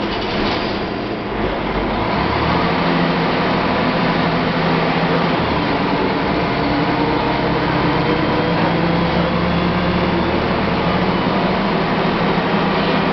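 Cabin noise inside an IVECO TurboCity 480.12 city bus under way: the diesel engine runs with a steady hum that becomes louder about two seconds in, over a constant road-noise hiss.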